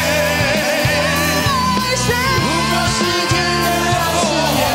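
Male voices singing a Mandarin rock ballad together into microphones over a loud band backing track.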